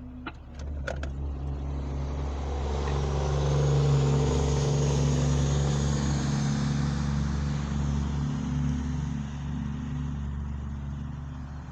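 A road vehicle driving past: its tyre and engine noise swells to a peak about four seconds in, then slowly fades away, over a steady low hum.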